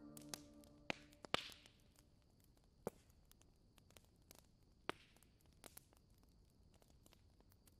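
Near silence after background music stops at the start, broken by a few faint, sharp clicks and one brief soft scratch.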